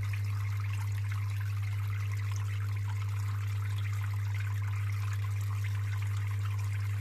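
Water trickling and splashing in a small homemade plastic-bottle waterfall fountain, over a steady low hum.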